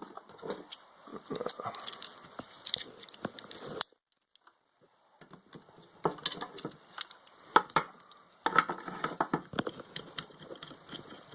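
Hand-tool work on a compressor's small air-line fitting: irregular clicks, taps and light metal knocks as the line is loosened and pulled off the pressure switch. The sound drops out for about a second and a half about four seconds in, then the clicking resumes.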